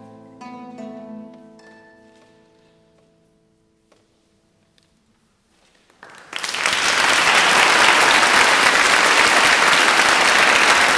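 Classical guitar's closing chord ringing out and dying away over a few seconds, followed by a moment of near silence. Audience applause then breaks out about six seconds in and is the loudest sound.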